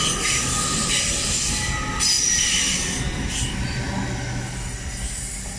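TransPennine Express Class 802 bi-mode train pulling out of the platform and rolling past close by. The running noise fades steadily through the second half as the end of the train draws away.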